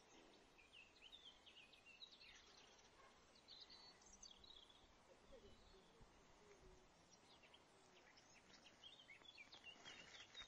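Near silence with faint birdsong: many short, high chirps and trills scattered throughout, over a low hiss.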